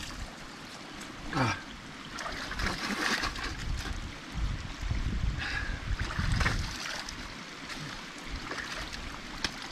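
Splashes of cold stream water as hands scoop it up to wash the face, over the steady running of the stream. There is an irregular, uneven pattern of splashes with a heavier low rumble in the middle.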